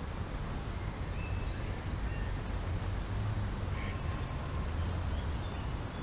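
Outdoor ambience of wind rumbling steadily on the camera microphone, with a few faint, short bird calls.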